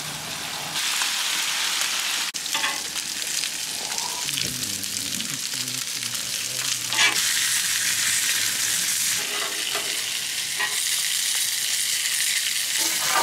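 Bacon strips frying on a hot Blackstone flat-top griddle: a steady sizzle that gets louder about a second in. A few short clicks of steel tongs turning and lifting the strips.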